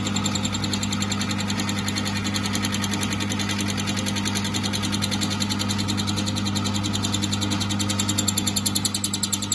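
Myford lathe running under power feed as a boring bit in the chuck takes a very fine cut: a steady electric motor hum with a fast, even mechanical pulsing that grows stronger near the end.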